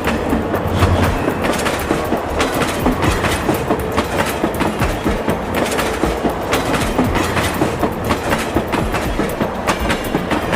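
Toy train running along its track: a steady rattle with many quick clicks of the wheels over the rails.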